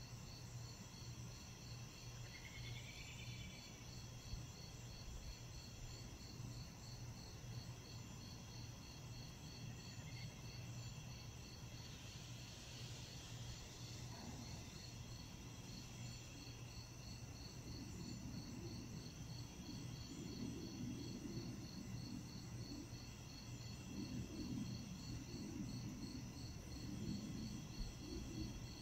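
Night insect chorus: crickets chirping in a steady rapid pulse, with other insects trilling on steady high notes. A low rumble builds up under the chorus in the second half.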